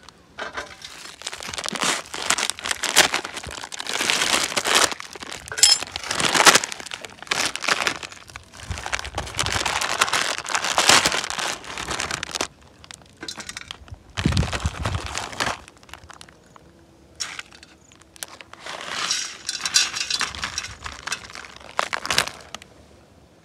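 Foil-lined plastic instant-noodle packets crinkling and rustling in irregular bursts as they are handled and the dry noodle blocks are pulled out. The rustling pauses around the middle, where there is a single dull thud, then starts again.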